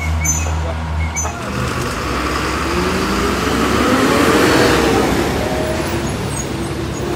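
Heavy truck diesel engine labouring on a steep climb, a low throb that drops away about a second in, followed by an engine note that rises and then falls again.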